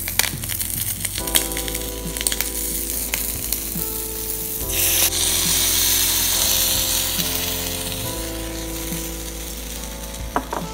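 Tiny metal spatula clicking and scraping in a miniature steel wok over light sizzling, then a little under halfway in broth poured into the hot pan sets off a loud sizzling hiss that slowly dies down to a simmer.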